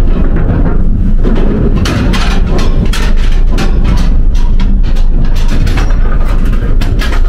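Car tyres rolling slowly over a ferry ramp's steel grating and plate joints, heard from inside the car: a steady low rumble with irregular metallic clanks and rattles, coming thick and fast from about a second and a half in.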